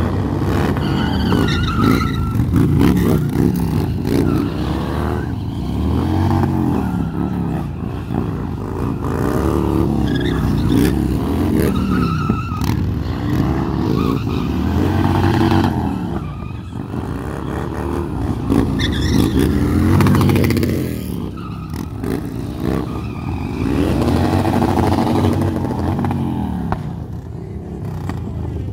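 Harley-Davidson V-twin motorcycle engines revving, their pitch rising and falling over and over as the bikes are ridden through stunts, with some tyre skidding.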